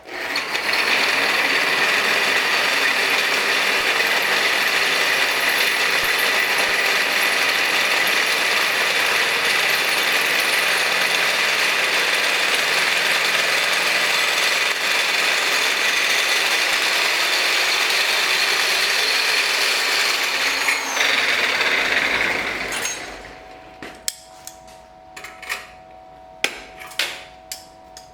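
A power tool cutting metal runs steadily for a little over twenty seconds, then shuts off and winds down. After that come scattered light clicks and knocks over a faint steady tone.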